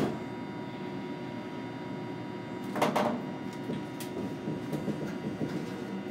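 Tokyo Monorail car standing at a station platform with its doors open: a steady hum with a faint high tone, a sharp click at the start and a short clatter about three seconds in.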